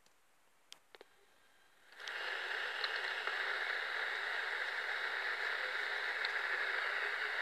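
Near silence with a few faint clicks, then about two seconds in a steady hiss of recording noise switches on and holds, with no speech or music.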